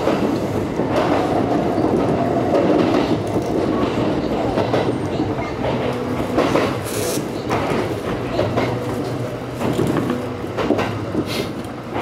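Kintetsu electric train running over points and rail joints into a station, heard from inside the front car: a steady running rumble with a few sharp wheel clacks about halfway through and again near the end, easing slightly as the train slows.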